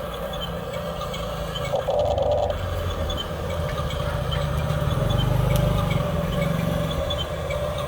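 An excavator's motor running steadily, building up and rising slightly in pitch for a few seconds past the middle, with a short higher whine about two seconds in.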